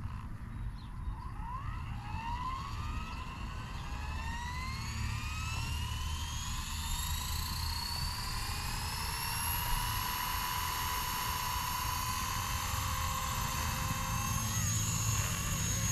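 Blade 230S electric RC helicopter spooling up: its motor whine rises in pitch from about a second in and settles into a steady whine over the last few seconds, over a steady low rumble.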